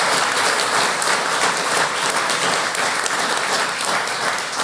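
Audience applauding steadily, a dense mass of hand claps.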